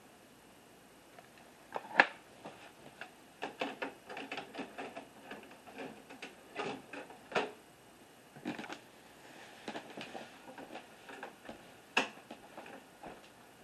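VCR taking in a VHS cassette: a sharp click about two seconds in, then a run of mechanical clicks and clatter as the mechanism loads and threads the tape, and another sharp click near the end.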